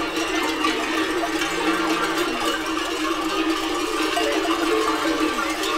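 Many bells hung on a herd of cattle ringing together without a break as the animals walk and graze.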